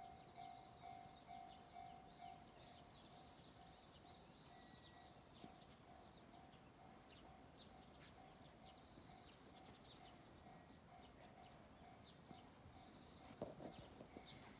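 Faint railway level-crossing warning bell ringing at about two strokes a second, softer after the first couple of seconds. Birds chirp throughout, and there is a brief knock near the end.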